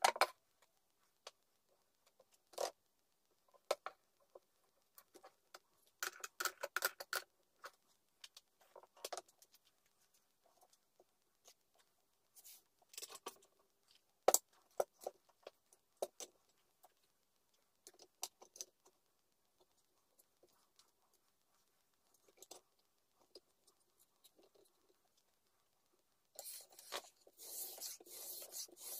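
Scattered clicks and taps of metal parts being handled and set on a knife-sharpening jig, then near the end a whetstone starts scraping back and forth along the knife edge in quick, even strokes.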